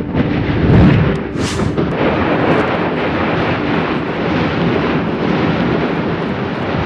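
Volcanic vent erupting explosively: a deep blast about a second in, a brief sharp hiss just after it, then a steady rushing of ash and gas jetting from the vent.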